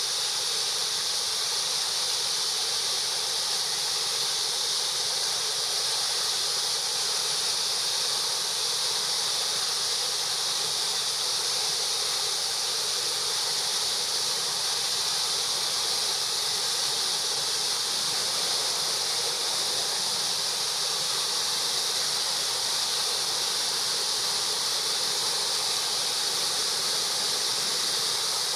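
Waterfall rushing steadily, a constant high-pitched hiss of falling water with no breaks.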